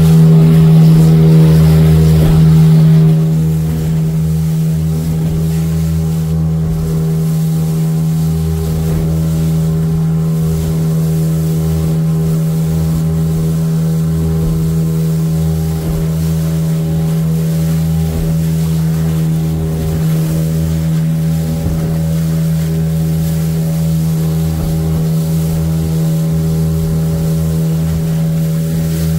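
Motor of a small open wooden fishing boat running at a steady speed, one constant drone with water rushing past the hull. It gets a little quieter about three seconds in, then holds steady.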